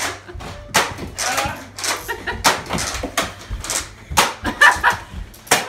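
A scattered run of sharp knocks, clacks and thumps from rough play-fighting with toy foam-dart blasters, about a dozen at uneven spacing, with brief children's voices between them.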